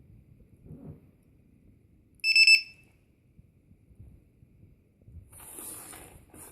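Piezo buzzer of a multirotor battery voltage monitor alarm giving one loud, high-pitched beep about half a second long, a little past two seconds in. A brief, quieter rustling noise follows near the end.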